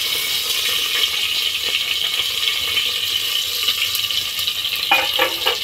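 Panch phoron, dried red chillies and a bay leaf frying in hot oil in a pressure cooker: a steady sizzling hiss with a few faint pops.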